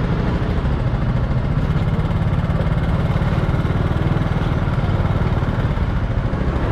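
Small motorbike engine idling steadily, with a low, even, fast pulsing hum.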